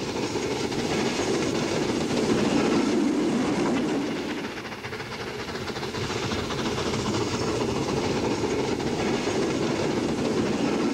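A metre-gauge steam tank locomotive and its coaches running past at speed, with the wheels clattering over the rail joints. The noise swells, eases off briefly midway, then builds again.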